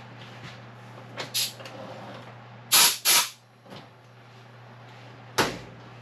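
A tractor's air filter and its housing being handled at a workbench: a few brief scuffs and knocks, the loudest two rushes close together about three seconds in, and a sharper knock near the end.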